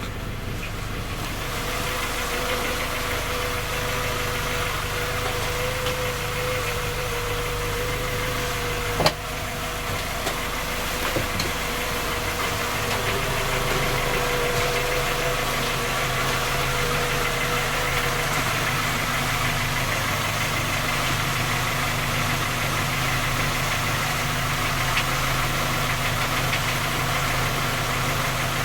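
Skoda Octavia 1.6 MPI four-cylinder petrol engine running steadily with a knock, the fault the owner hears when the engine is cold and that three engine repairs have not found. A faint whine fades out about two-thirds of the way through, and a single sharp click sounds about nine seconds in.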